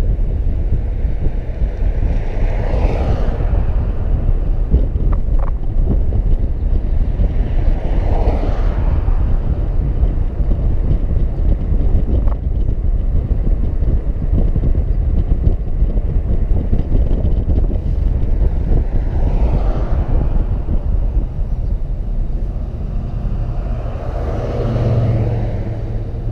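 Steady low wind buffeting and road rumble from a car driving along a city street, with other vehicles swishing past four times, each swelling and fading over a second or two.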